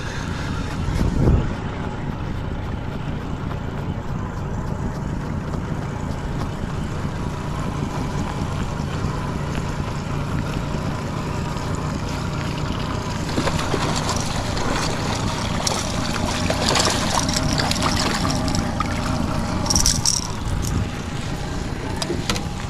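Honda 30 hp four-stroke outboard motor running steadily at slow trolling speed, a constant hum, with a few brief clicks and rustles in the second half.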